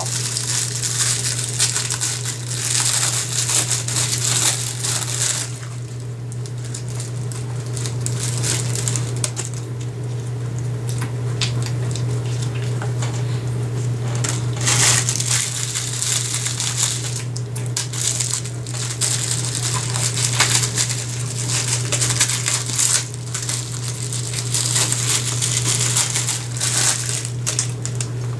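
Plastic snack-cake wrappers crinkling and crackling in irregular bursts as they are torn open and handled, mixed with chewing, over a steady low hum.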